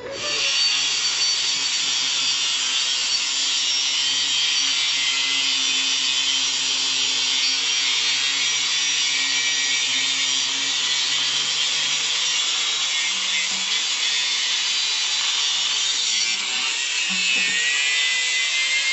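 Handheld angle grinder grinding into steel: a steady, high, hissing grind of the disc on metal. The motor's whine rises slightly near the end.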